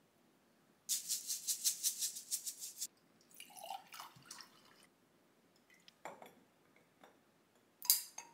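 A seed shaker rattles quickly for about two seconds as sesame seeds are sprinkled over a fried egg on rice. Then water pours from a plastic bottle into a drinking glass. A few light knocks follow, and a short sharp clink near the end is the loudest sound.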